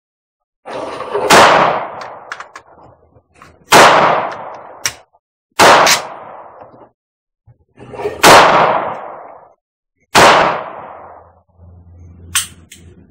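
Five rifle shots fired one at a time, about two seconds apart, each ringing out with a long fading echo. A short high ping follows near the end.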